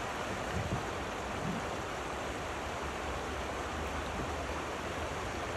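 Steady rush of fast, shallow river water running over a rocky riffle.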